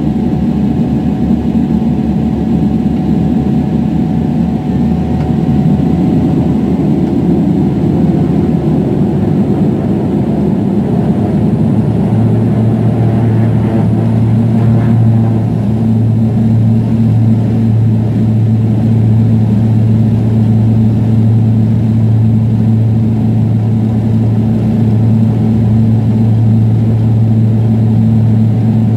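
Jet airliner cabin noise heard from a window seat as the plane rolls along the runway: a steady rumble of engines and wheels, with a steady low hum coming in about twelve seconds in.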